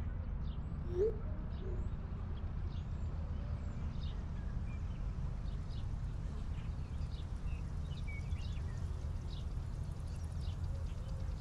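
Steady low room hum with faint bird chirps scattered throughout, and a short low rising call about a second in.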